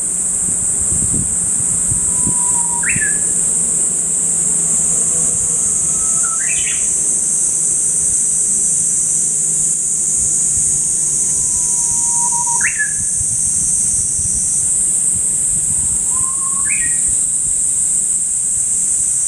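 Japanese bush warbler (uguisu) singing its whistle-like song four times, each a long held note that breaks into a quick rising flourish. A loud, steady high-pitched hiss runs underneath.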